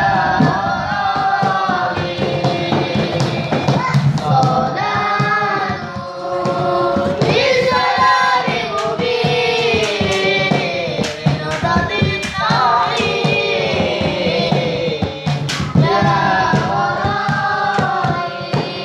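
A boy sings a qasidah, an Islamic devotional song, into a handheld microphone in a bending, ornamented melody. Frequent hand strokes are beaten on a plastic bucket used as a drum behind the voice.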